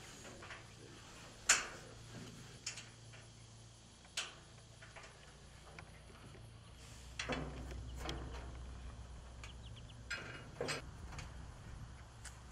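Scattered sharp clicks and knocks of hands working on a hay feeder's steel roof frame, its roof panels and the bolts of a corner bracket. The loudest knock comes about a second and a half in, and the rest fall a second or more apart, over a low steady hum.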